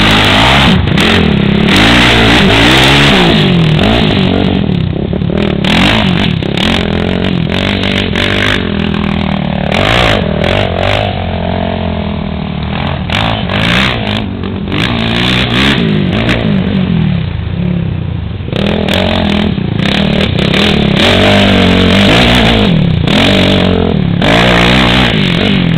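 Quad (ATV) engine revving up and down as it is ridden over sand dunes, louder near the start and end, with a quieter stretch in the middle.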